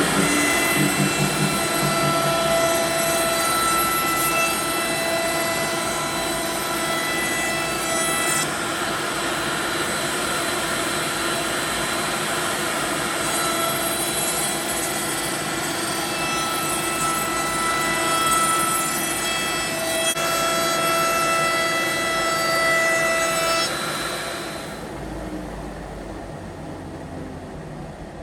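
Small CNC router carving wood: a steady spindle whine and cutting noise, with motor tones that shift in pitch every few seconds as the machine moves. Near the end the cutting sound drops away and it gets much quieter.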